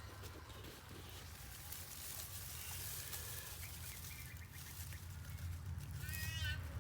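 Quiet background with a steady low hum; about six seconds in, a cat meows once.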